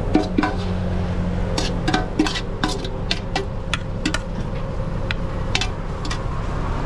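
A run of light clinks and clatters, like utensils and dishes knocking together, about a dozen sharp strokes with brief ringing, over a steady low hum of traffic.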